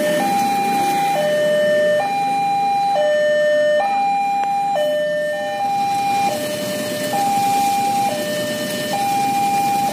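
Railway level-crossing warning alarm sounding two electronic tones, high and low, alternating steadily, each held just under a second: the signal that a train is approaching and the barriers are down.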